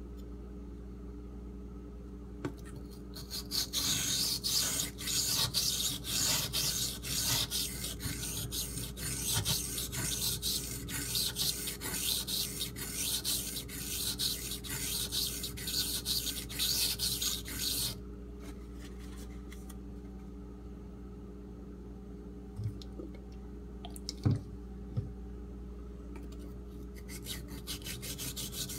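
Steel knife blade stroked rapidly back and forth on a Shapton Pro whetstone, a dense run of scraping strokes, sharpening the second side to raise a burr. The strokes stop about two-thirds of the way through, a few light knocks follow, and the strokes start again near the end.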